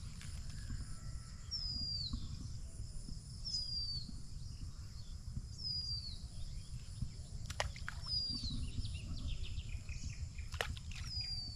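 A bird repeating a short, falling whistle about every two seconds, over a steady low outdoor rumble. A few sharp ticks come in the second half.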